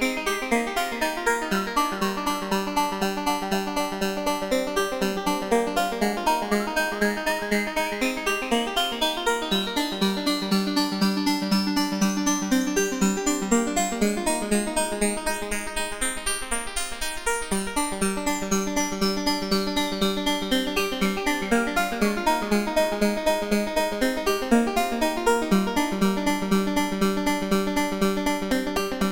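Moog modular synthesizer playing a fast, evenly repeated note pattern, patched with cables and tweaked by hand at its knobs. A bright resonant tone sweeps slowly up over about ten seconds, holds near the top, then sweeps back down, like a filter being opened and closed.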